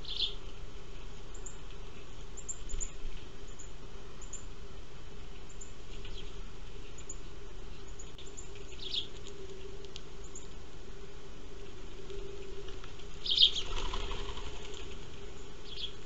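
House sparrows giving a few short, high chirps at a feeding table, with a brief burst of wing flapping about 13 seconds in as birds fly off. A steady low hum runs underneath.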